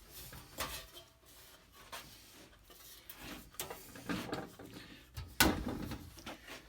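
Scattered knocks, clatter and rubbing of objects being handled, with a louder thump about five and a half seconds in.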